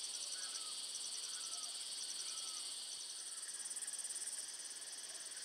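Insects chirping in chorus: a steady high trill with a short pulsed chirp of five or six notes repeating about once a second.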